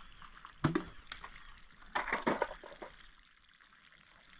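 Water being scooped off a flooded tent floor with a plastic dustpan and splashed out, in two short bursts about half a second and two seconds in.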